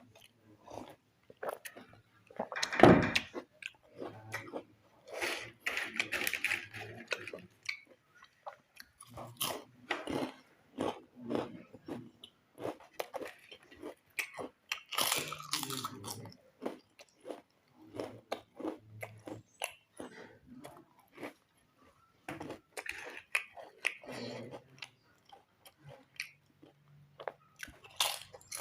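Crunchy packaged chips being bitten and chewed close to the microphone: irregular crisp crunches and chewing, with one loudest bite about three seconds in.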